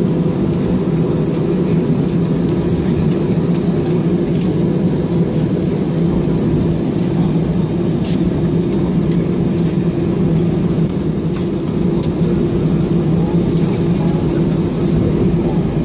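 Steady cabin noise of an Airbus A320-216 taxiing on the ground, its CFM56 engines running at taxi power, heard from inside the passenger cabin. A few faint ticks or rattles sound now and then over the steady noise.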